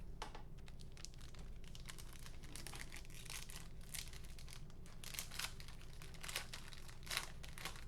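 Trading-card pack wrapper being torn open, its plastic crinkling in a run of quick crackles, the sharpest near the end.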